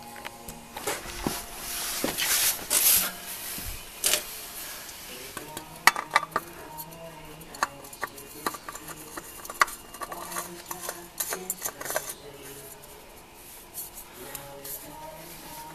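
Metal spin-on oil filter being handled and screwed on by hand against the engine's filter mount. Scraping for the first few seconds, then irregular sharp clicks and metallic knocks.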